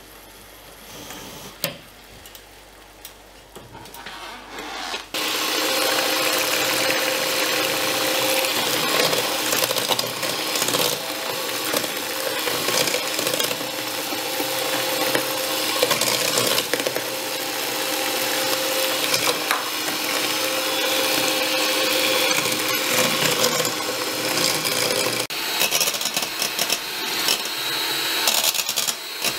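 Electric hand mixer running steadily, its wire beaters whipping batter in a stainless steel bowl; it starts about five seconds in after a quieter stretch.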